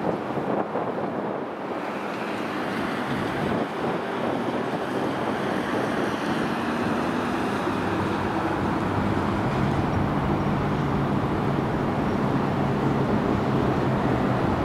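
Road traffic noise with wind buffeting the microphone; about six seconds in a vehicle engine hum rises in pitch and then holds steady.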